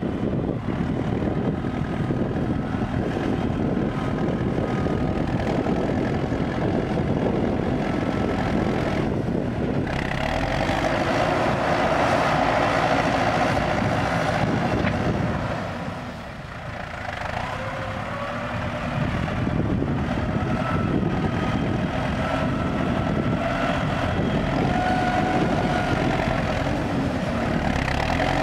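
CLAAS Talos 240 tractor's diesel engine working under load as the front blade pushes soil. The engine falls off briefly about halfway through, then picks up again.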